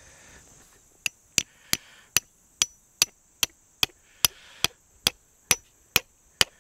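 A hammer striking in a steady, even rhythm, about two and a half blows a second, several of them leaving a short high metallic ring.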